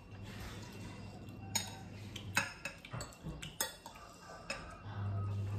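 Metal forks and spoons clinking and scraping on glass plates while noodles are eaten, with about five sharp clinks in the middle. A low steady hum runs under it at the start and comes back louder near the end.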